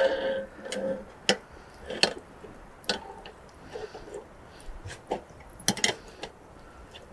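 Steel shashlik skewers clinking and knocking against a folding grill made of 3 mm steel as they are laid across it, one after another. The clicks are sharp and come at uneven gaps of about half a second to two seconds.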